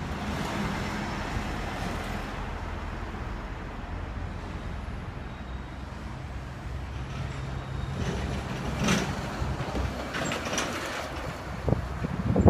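A vehicle engine running steadily with wind noise, with a few louder sudden sounds in the second half.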